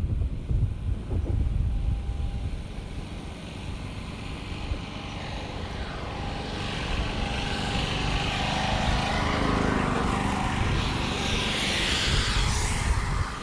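Wind buffeting the microphone, then a motor vehicle approaching and passing close, its tyre and engine noise swelling from about six seconds in and loudest near the end.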